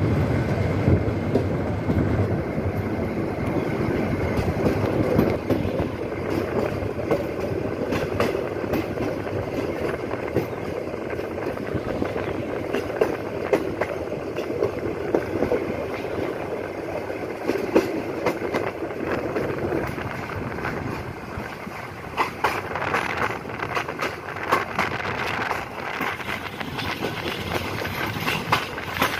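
Passenger train running along the track, heard from a coach window: a steady rumble of wheels on the rails with many short, sharp clicks.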